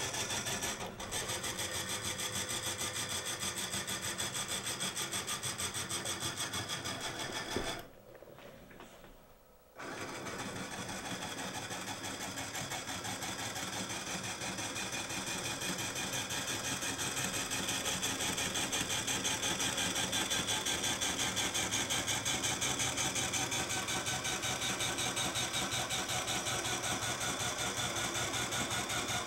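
Small electric motors of a dual-axis solar tracker running as it turns its panel: a steady mechanical whirr that stops about eight seconds in, pauses for about two seconds, then starts again and keeps going.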